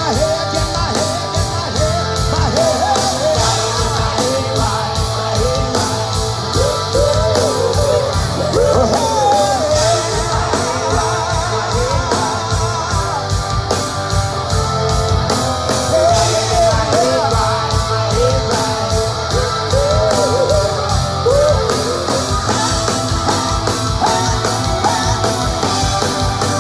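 Live rock band playing loud: drums, bass and electric guitar, with a male singer's voice wavering over them.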